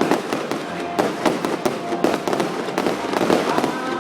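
Fireworks going off in quick, irregular succession: a dense string of sharp cracks and bangs with no pause between them.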